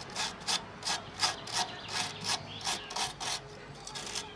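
Hand wire brush scrubbing rust off a car's rear suspension bolts and strut, in quick back-and-forth scraping strokes at about three a second, steel bristles on rusty steel.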